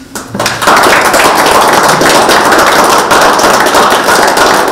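Audience applauding: dense clapping that swells up within the first second and then holds steady.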